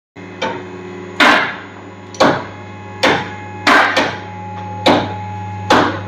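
Hammer blows on a car's steel front suspension parts, about seven sharp metallic strikes spaced roughly a second apart, over a steady low machine hum.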